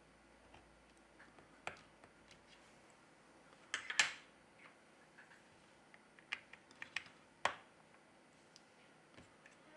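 Faint, scattered small clicks and taps of a pointed tool and fingertips on a smartphone's metal middle frame and board parts as the phone is put back together. The loudest is a short clatter about four seconds in.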